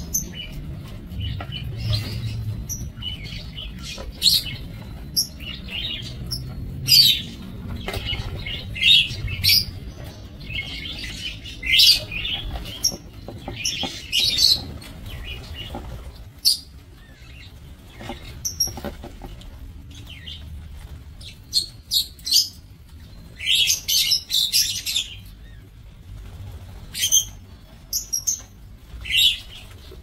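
A flock of lovebirds chirping: short, shrill calls scattered through, some coming in quick runs, over a low steady background rumble.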